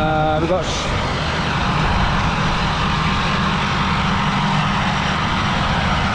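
Loud, steady mechanical running noise from the Freakout fairground ride during its build-up, with an even low drone and no rise or fall.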